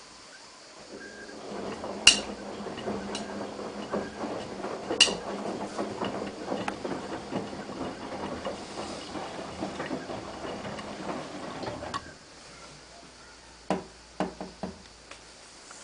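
Hotpoint-Ariston AVXXF137 washing machine drum turning during a wash, laundry tumbling with a dense rattle and a couple of sharp clicks, then stopping suddenly about twelve seconds in. A few separate knocks follow near the end.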